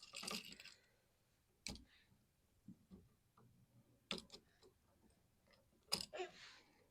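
Faint scattered clicks and short rustles, with three sharper clicks spread through: an electrical wall outlet and its wires being handled.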